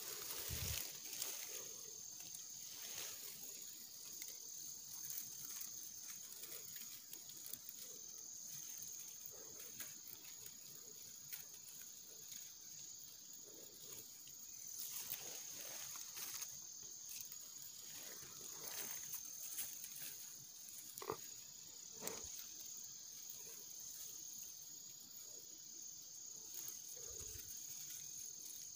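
Insects chirring in one steady, high-pitched drone, with scattered rustles and light snaps of dry grass and stems as hands work close to the microphone setting a trap.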